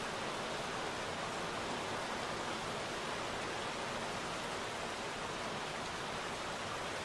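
Steady rain falling into puddles: an even hiss without separate drops standing out.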